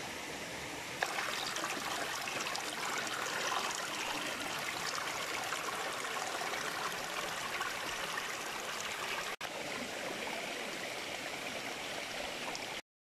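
Shallow forest stream running and trickling over rocks, a steady rush that gets louder about a second in.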